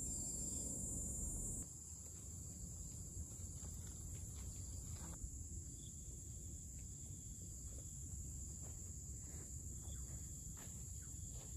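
Steady high-pitched drone of insects, like crickets, in tropical forest. A low rumble beneath it stops abruptly about two seconds in, and faint soft steps follow as a hiker walks across grass.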